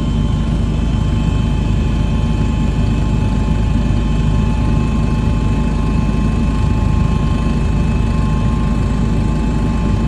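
Aircraft engine running steadily: a loud, even rumble with a steady high whine on top.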